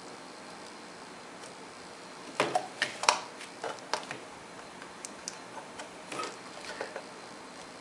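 Sharp clicks and taps from a small pad switch on a mixer's circuit board as its clipped outer casing is pried up to expose the contacts: a quick run of clicks about two seconds in, then a few lighter ones.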